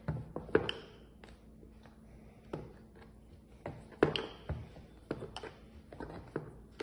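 Rolling pin knocking and clicking on a wooden chopping board as small rounds of dough are rolled out: irregular light knocks, sparse in the first couple of seconds, more frequent after, the sharpest about four seconds in.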